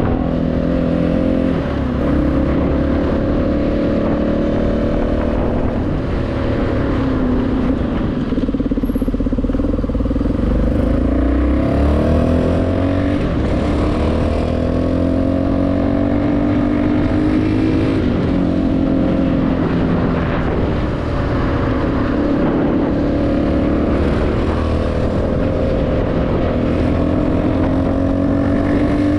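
CFMoto 250NK single-cylinder engine through a full Akrapovič exhaust, riding along with the revs rising and falling again and again as it accelerates, shifts and eases off.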